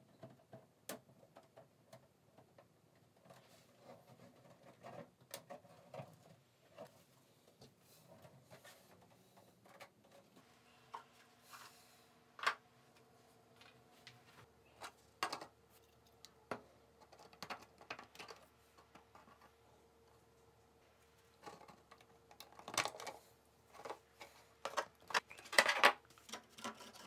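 Hard 3D-printed plastic parts being handled on a workbench: scattered light clicks and taps, with a busier run of clicks near the end.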